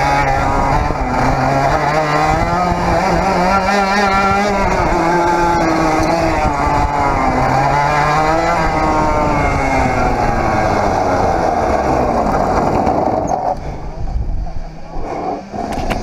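Onboard sound of a 100cc Parilla reed-valve two-stroke kart engine revving up and down through the corners. Near the end the engine note drops away as the kart comes to a stop.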